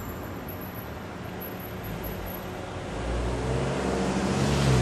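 Street traffic: a motor vehicle's engine grows louder about three seconds in, its note rising as it draws close, over a steady hum of city traffic.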